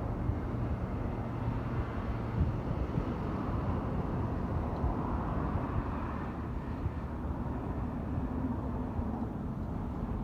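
Steady low vehicle rumble, fairly even throughout, with no distinct knocks or rhythm.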